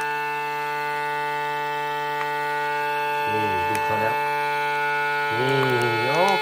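Countertop vacuum sealer's pump running with a steady whine, drawing the air out of a bag of sausages. A voice-like sound with gliding pitch comes in briefly about three seconds in, and again near the end.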